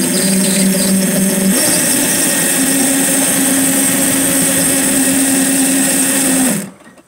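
A 48 V 1800 W brushless electric motor running in forward, driving the inboard propeller shaft through a roller-chain drive, with a loud, steady chain noise and motor hum. The hum shifts higher about a second and a half in, and the run stops abruptly just before the end.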